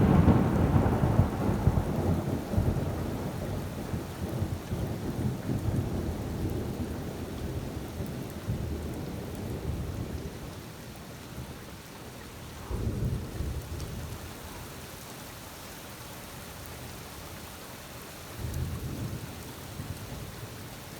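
Thunder during a heavy rainstorm: a loud peal at the start rolls into a long rumble that fades over about ten seconds, and two shorter rumbles follow later, over the steady hiss of rain.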